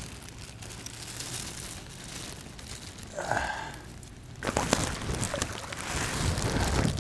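Rain and splashing water while a small northern snakehead is fought and brought in on rod and reel, a crackly hiss that grows louder about four and a half seconds in, with a short sigh-like voiced sound about three seconds in.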